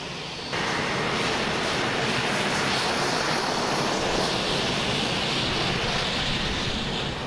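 An AMX attack jet's Rolls-Royce Spey turbofan running as the jet taxis: a steady rush of jet noise that sets in abruptly about half a second in.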